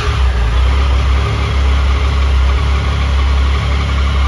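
Triumph Tiger Sport 1050's three-cylinder engine catching after the starter right at the start, then idling steadily.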